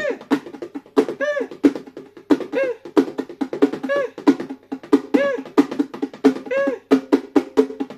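Bongos played by hand in a fast, steady rhythm of slaps and open tones. A short pitched tone that rises and falls comes back about every second and a half over the drumming.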